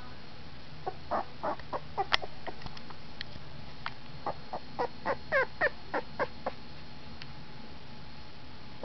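Fifteen-day-old red-nose brindle pit bull puppy giving a run of short, high squeaky whimpers, many sliding down in pitch, between about one and six and a half seconds in. There is a single sharp click about two seconds in.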